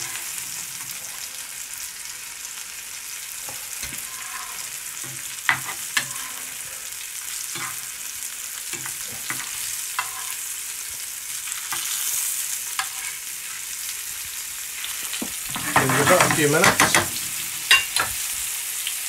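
Fish fillets sizzling steadily as they fry in oil and butter in a frying pan, with a metal knife now and then tapping and scraping the pan as the pieces are turned. A louder burst of clatter comes about sixteen seconds in.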